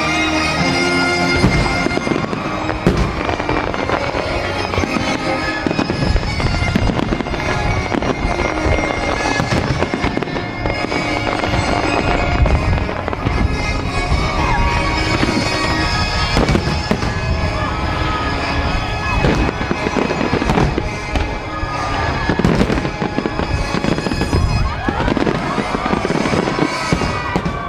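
Aerial fireworks shells bursting in quick succession, a dense barrage of bangs and crackle with no pauses, with music playing underneath.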